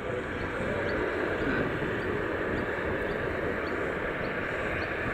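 Airbus A330-202's General Electric CF6-80E1 turbofan engines running steadily as the airliner comes in to land, with faint high ticks repeating about every half second.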